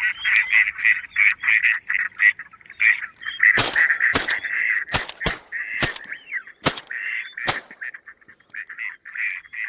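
Ducks quacking in rapid pulsed calls throughout, broken by a volley of about seven shotgun shots fired in quick succession a few seconds in.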